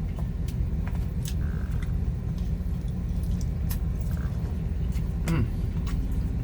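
Steady low rumble of a vehicle's engine heard from inside the cab, with a few sharp clicks scattered through it.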